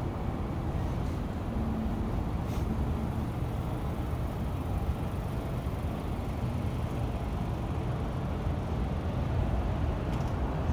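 City street traffic: a steady low rumble of vehicles, with a car driving past near the end.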